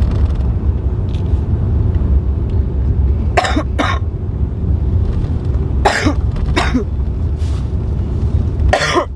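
A pregnant woman coughing in short bouts: two coughs a few seconds in, two more about two seconds later, and the loudest one near the end. It is the persistent cough she has had for a week. A steady low rumble runs under it throughout.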